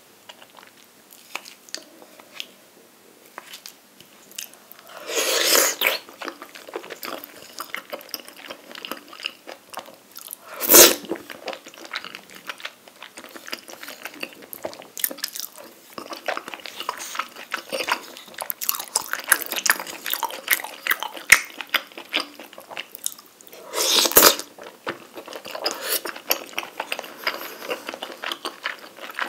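Close-miked eating sounds of a noodle and rice-cake dish: wet chewing with many small mouth clicks. Louder stretches of about a second come about five and twenty-four seconds in, and one sharp click about eleven seconds in.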